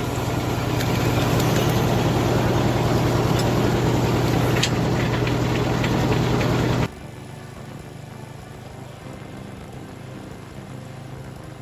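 A machine's engine running steadily with a strong low hum. About seven seconds in the sound cuts abruptly to a quieter, steady engine note.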